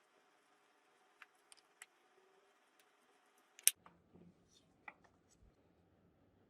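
A few faint, scattered clicks and light taps over a quiet background, with one sharper click a little past the middle.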